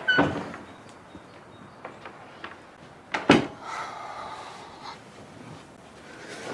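An interior door being opened with faint latch clicks and light steps, then shut with one sharp knock about three seconds in.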